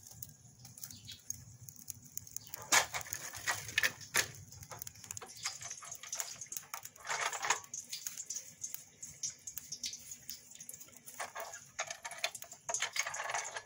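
Plastic sheets crinkling in short bursts, with scattered light clicks, as a metal tortilla press is opened and handled to press dough.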